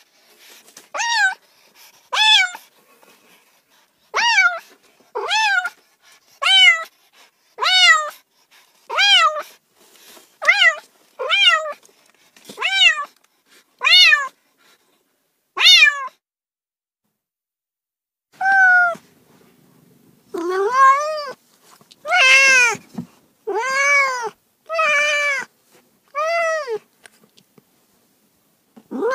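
A cat meowing over and over, short rising-and-falling meows about once a second. After a pause of a few seconds, lower-pitched, longer meows follow.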